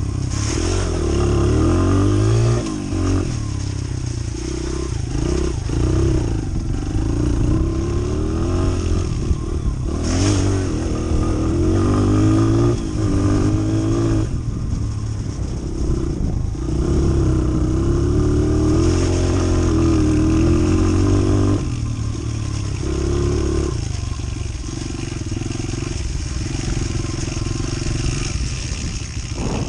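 Honda CRF100 dirt bike's small single-cylinder four-stroke engine riding under load, the revs climbing and dropping again and again with the throttle and gear changes, then easing off to a lower, quieter note about two-thirds of the way through.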